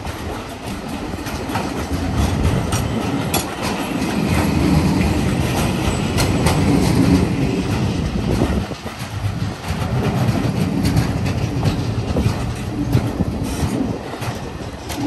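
Renfe container freight wagons rolling past at close range: a steady rumble of wheels on rail, broken by repeated sharp clicks of the wheelsets, a clickety-clack.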